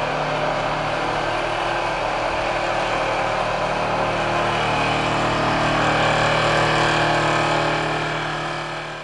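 Steady mechanical drone of a vibratory pile hammer and its power pack driving steel sheet piles. It fades out near the end.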